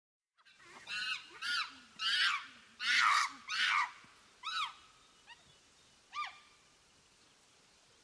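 Monkey calls: a run of about eight short cries, each rising and falling in pitch, coming thick and loud over the first four seconds, then fewer and fainter.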